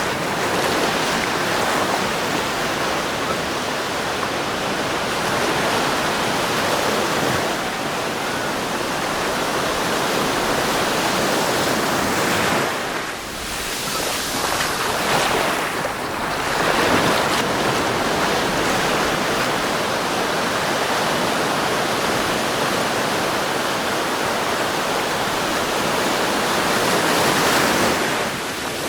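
Waves breaking and washing on a sandy beach, a steady rush of surf that dips briefly about halfway through and swells again near the end.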